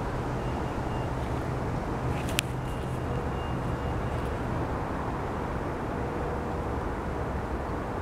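Steady low background rumble with a single sharp click about two and a half seconds in.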